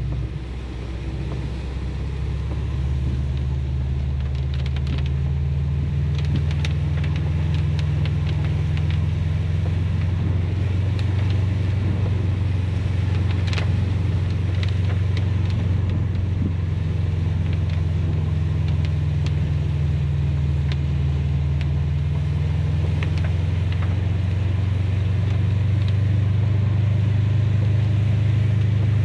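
Car engine droning steadily with road noise while driving, its pitch shifting a little, with a few light ticks scattered through.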